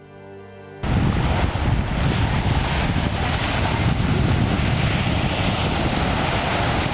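Held notes of background music die away. About a second in, a loud steady rush of sea wind buffeting the microphone and surf breaking on a beach cuts in, with heavy low rumble.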